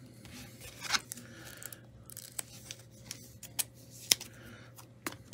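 Hands handling a trading card and its hard plastic card holders: a series of sharp plastic clicks and taps with soft scraping and rustling between them.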